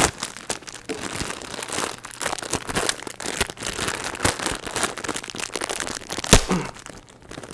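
Green floral tape crinkling and crackling as it is pulled off the roll and wrapped around a wire ring, a dense run of small crackles with one sharper snap about six seconds in.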